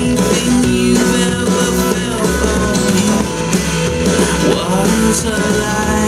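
Rock-pop song in an instrumental passage led by guitar, played back through Kenwood LS-F4 three-way bookshelf speakers for a sound test.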